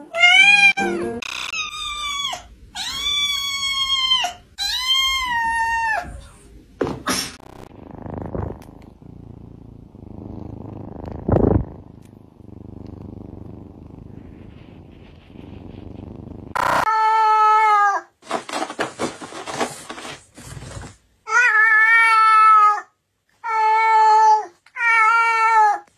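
Domestic cats meowing: three long meows that rise and fall in pitch, then a quieter stretch with a single sharp knock in the middle, then a run of shorter meows repeated about every second and a half near the end.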